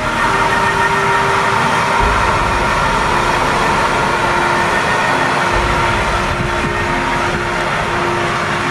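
Claas Arion 650 tractor running steadily under load as it pulls a Maschio Gaspardo MTE precision planter through the field, a dense machine noise with a steady whine over it.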